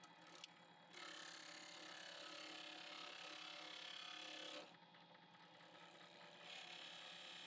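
Benchtop wood lathe running with a steady motor hum while a hand tool cuts a small wooden ring blank, a hiss of cutting from about one second in to past the middle and again near the end.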